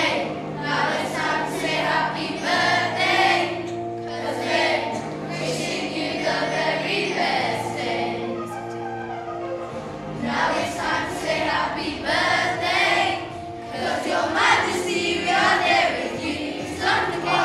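A group of children singing a song together over instrumental backing music.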